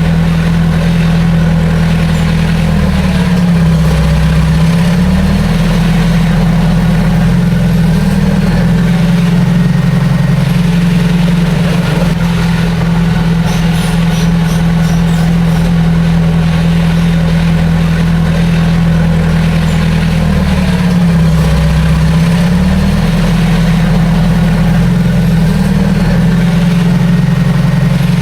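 Heavy earthmoving machine's diesel engine running steadily and loud, its pitch sagging and recovering twice.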